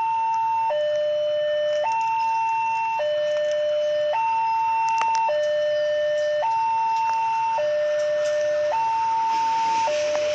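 Railway level-crossing warning alarm sounding an electronic two-tone signal. It alternates steadily between a low and a high tone, each held a little over a second, warning that a train is coming.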